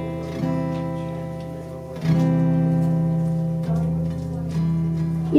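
Guitar playing slow strummed chords, each left to ring, with four fresh strums over the few seconds.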